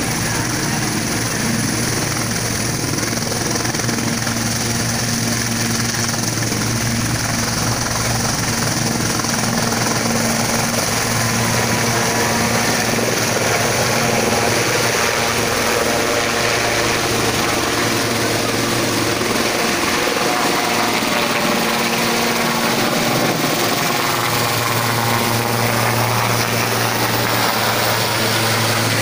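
Helicopter taking off and flying overhead: steady turbine whine and rotor noise, getting a little louder about ten seconds in as it lifts off.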